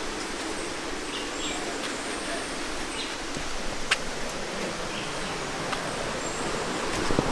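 Steady rush of a rainforest river flowing over rocks, with a single sharp click about four seconds in.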